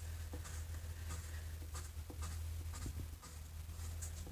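Rounded end of a paintbrush handle rubbing over a wet printed paper sheet on a painted box, transferring the ink lettering. It makes faint scratchy strokes and scattered small ticks over a steady low hum.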